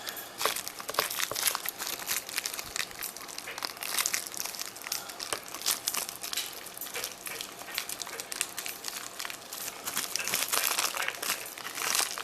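Crinkling and crackling of the papery bellows of a composition doll's crier as it is handled and the squeaker is fitted and pulled tight.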